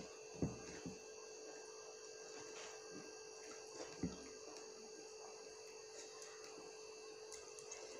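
Fingers mixing rice and vegetables on a plate, giving a few short clicks about half a second in and again around four seconds, over a faint steady electrical hum.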